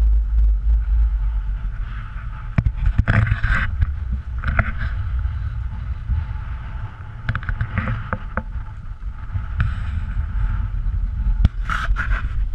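Wind buffeting the action camera's microphone as a heavy, steady rumble, with choppy water lapping and splashing in louder swells and a few sharp knocks.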